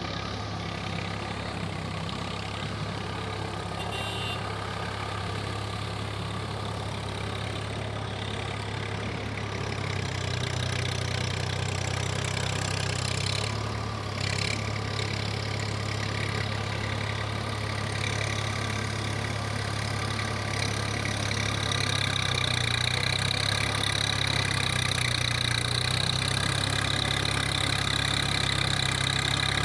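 Tractor engine running steadily at idle, its hum growing louder partway through.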